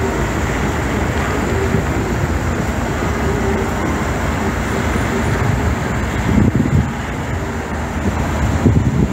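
Steady street traffic noise from idling and slow-moving vehicles, fire engines and cars among them, with a low engine rumble swelling briefly about six and a half seconds in and again near the end.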